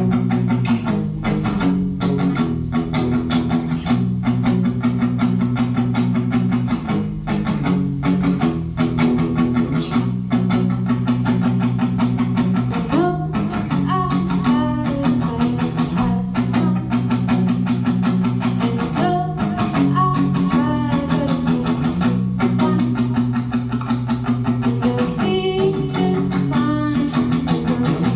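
Rock band playing live, without vocals: electric guitar and bass guitar over drums keeping a steady beat.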